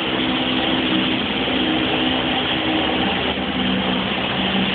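Canal boat's engine running at a steady pace, a continuous low hum with a dense wash of noise, heard inside a canal tunnel.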